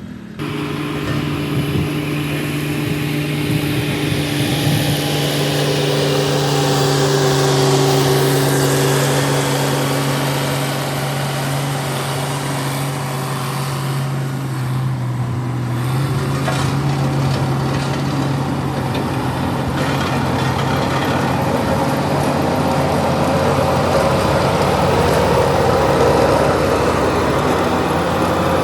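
Shantui DH17 C2 bulldozer's diesel engine running steadily under load. The drone shifts slightly in pitch about halfway through.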